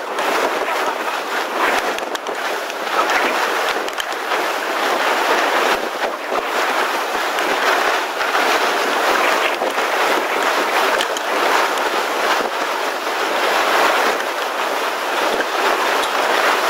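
Strong wind rushing across the microphone: a loud, steady noise that rises and falls a little with the gusts.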